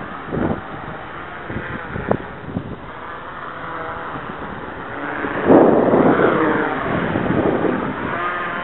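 Small electric multicopter's motors and propellers buzzing in flight, several pitches sliding up and down as the throttle changes, loudest about halfway through. There are a few short knocks in the first couple of seconds.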